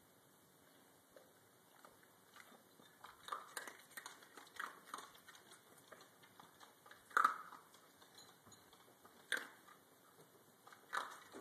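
A dachshund eating dry kibble from a ceramic bowl: irregular crunching and chewing that starts a couple of seconds in, with a few louder crunches in the second half.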